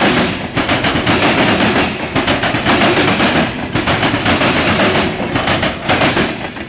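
Loaded freight-train covered hopper cars passing close by, their steel wheels clattering rapidly over the rails in a fast rattle with brief lulls between cars. The clatter drops away near the end as the last car goes by.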